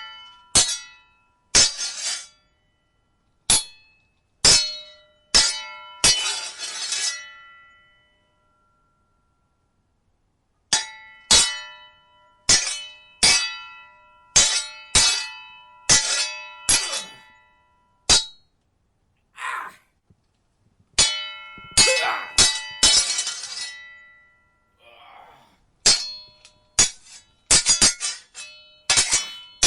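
Metal sword blades clashing in irregular volleys of sharp clangs, each strike ringing on briefly. There is a pause of about three seconds around a third of the way in, and a couple of softer swishing sounds later among the clashes.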